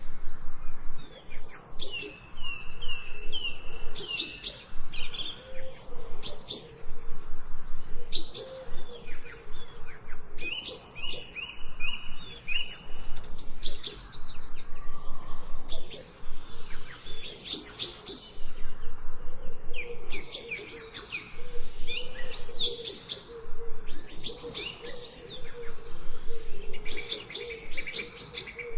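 Several birds chirping and singing together in overlapping phrases of short, repeated high notes and trills, with hardly a pause.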